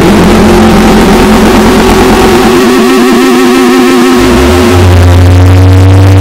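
Harsh noise music at full loudness: a dense wall of distorted electronic noise with warbling tones. A steady low drone comes in about four seconds in.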